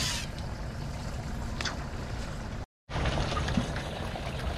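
Steady low rumble of a fishing boat under way, with water noise, cutting out completely for a moment about two-thirds of the way through.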